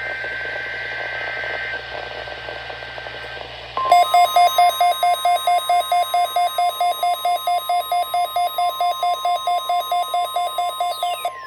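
Weather radio hiss, then about four seconds in the NOAA Weather Radio 1050 Hz warning alarm tone comes on and triggers a weather alert receiver, whose alarm beeps rapidly over the steady tone at about four beeps a second. The beeping cuts off near the end and a falling tone starts.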